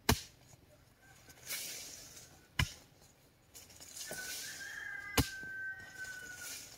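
Wood being chopped: three sharp blows about two and a half seconds apart, with a hissing rush between them.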